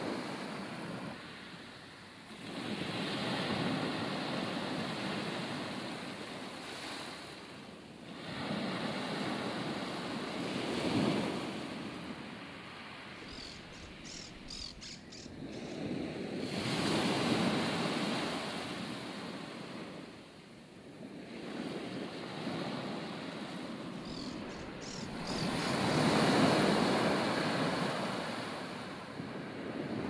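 Ocean surf breaking on a beach in slow surges that swell and fade every several seconds, with wind blowing over the microphone.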